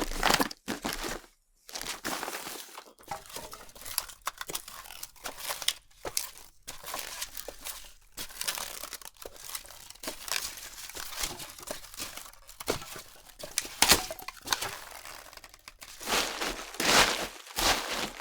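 Footsteps crunching and crackling on dry ground, a steady walk of uneven steps that grows louder near the end.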